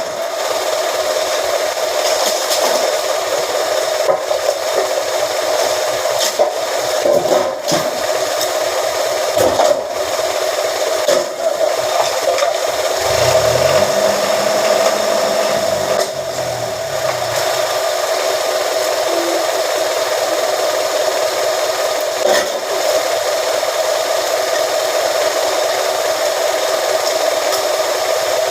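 A metal press machine runs steadily with a constant hum, with a few sharp knocks scattered through the first half and a low rumbling swell in the middle.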